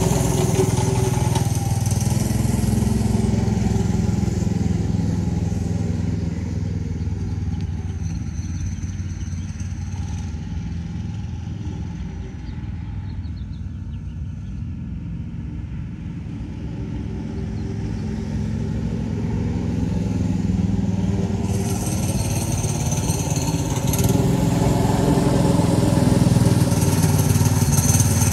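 Subaru Robin SP170 6-horsepower single-cylinder engine on a scooter running under way: it fades as the scooter rides off, is faintest around the middle, then grows louder again as it comes back.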